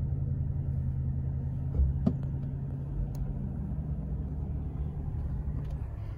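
Motor vehicle running with a steady low rumble and hum, with a couple of faint clicks.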